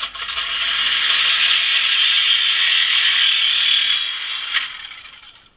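Reciprocating saw cutting through the exhaust pipe of a 2013 Dodge Charger to remove the muffler. It is a loud, steady buzzing cut that starts at once, runs about four seconds, then slows and stops near the end.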